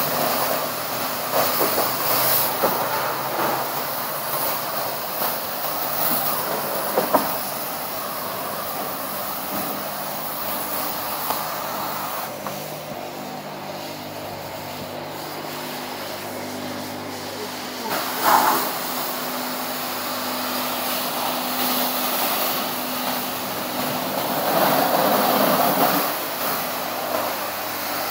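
High-pressure water jet from a car wash spray wand hissing as it blasts the car's bodywork, over the steady hum of the wash pump. The spray thins for several seconds about halfway through, with a short louder splash soon after, and grows stronger again near the end.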